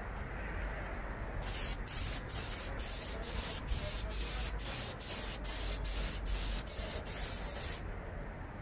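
Aerosol can of Duplicolor clear coat spraying with a steady hiss, laying on a light coat. It starts about a second and a half in and stops near the end, broken by brief gaps two to three times a second.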